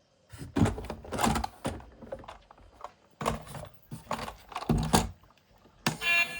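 Handling noise: irregular clicks, knocks and clatter of hard objects being moved about. Music starts near the end.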